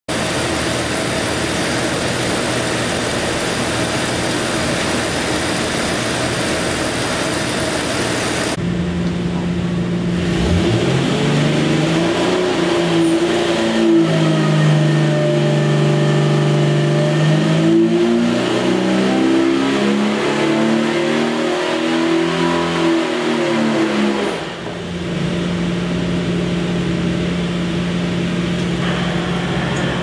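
Jeep 4.6-litre stroker inline-six running on an engine dyno. About ten seconds in, its revs climb through a dyno pull, stay up for some ten seconds, then fall back, and it settles into a steady run.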